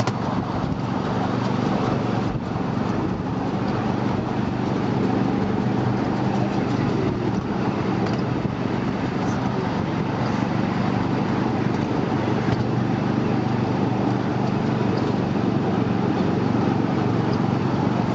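Miniature passenger train running, heard from aboard: a steady low rumble of the train moving along the track, with a steady hum underneath.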